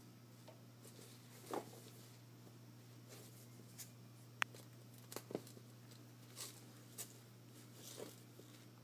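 Faint rustling of fabric and soft thumps as a Yorkshire Terrier puppy noses and tugs about in a blanket with a rope toy, with one sharp click about four and a half seconds in, over a steady low hum.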